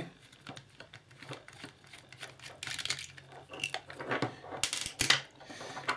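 Small screwdriver and hands working at the plastic housing of a partly dismantled USB condenser microphone: scattered clicks and scraping of metal on plastic, with a few sharper clicks about five seconds in.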